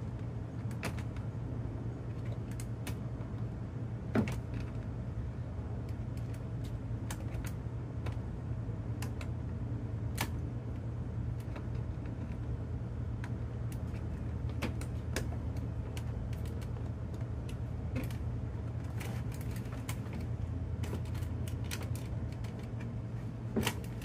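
Scattered plastic clicks and light rattles as a 2011 Ford F-150 inner door trim panel is handled and the cables and connectors behind it are worked loose, with a louder click about four seconds in and another near the end. A steady low hum runs underneath.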